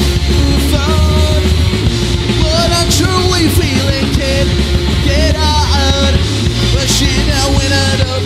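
A punk rock band playing live, with a drum kit, bass and distorted electric guitars, heard through a direct mixer feed.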